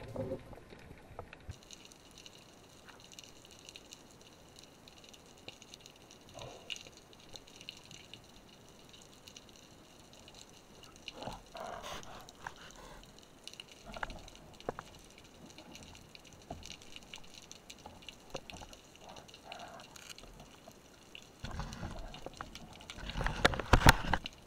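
Underwater sound heard through the camera housing: faint steady hiss with scattered clicks and sloshes, and a louder rush of water near the end.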